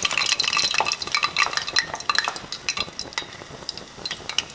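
Batter-coated fish nuggets frying in a small saucepan of hot canola oil, sizzling with a dense, uneven run of crackles and sharp pops.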